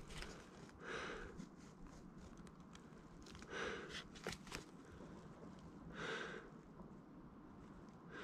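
A hiker breathing heavily, three slow, faint breaths about two and a half seconds apart, with a few faint clicks between them.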